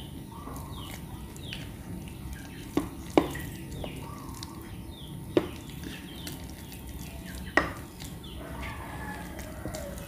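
Large spoon stirring wet flour dough in a glass bowl, with a few sharp knocks of the spoon against the glass. Faint high chirps sound in the background throughout.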